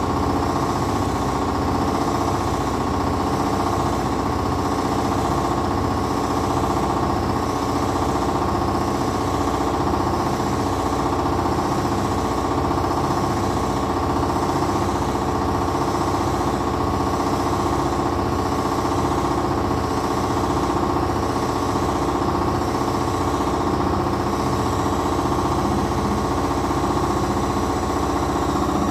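Primus commercial front-loading washing machines running, a constant machine hum with several steady held tones over a fast low rattle, unbroken throughout.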